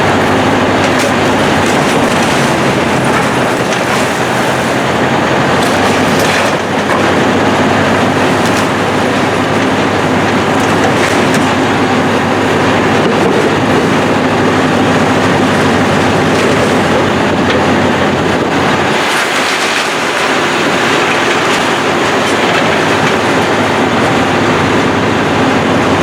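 Heavy demolition machinery at work: a steady engine drone under a continuous clatter and crunch of breaking building debris.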